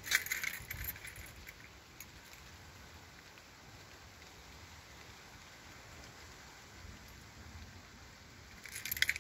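Steady outdoor hiss, with a brief rattling clatter in the first second and another near the end.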